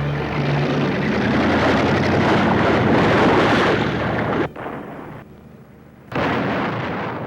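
Film sound effect of a loud explosion-like blast and rumble that cuts off about four and a half seconds in, followed by a second, shorter blast about a second long.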